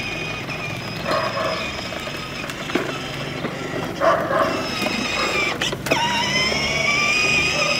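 Children's battery-powered ride-on scooter running: its small electric motor and gearbox whine steadily over a low hum, the whine climbing slightly in pitch in the second half. A couple of sharp clicks just before six seconds in.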